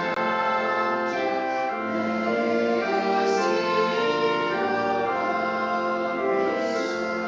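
Church music in slow, sustained chords that change about once a second.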